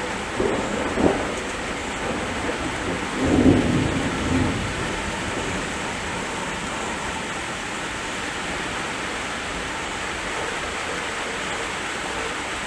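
Heavy rain falling steadily in a thunderstorm, with thunder rumbling about a second in and again, louder, around three to four seconds in.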